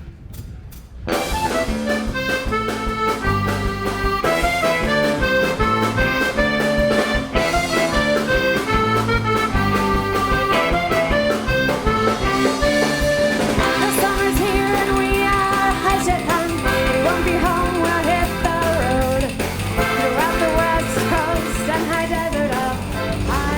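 Live Basque band music led by a trikitixa (diatonic button accordion), with a drum kit rhythm section. A few short clicks come first, and the full band comes in about a second in.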